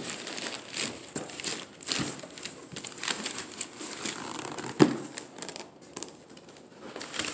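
Speaker packaging being handled and pulled open: irregular crinkling and rustling with scattered clicks, and one sharper knock about five seconds in.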